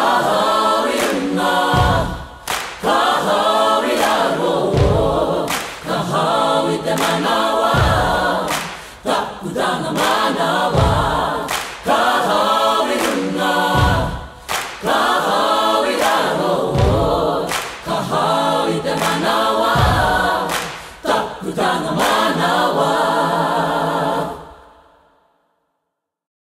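A group of voices singing and chanting, with sharp percussive hits and heavy low thumps running through it; it stops suddenly about 24 seconds in.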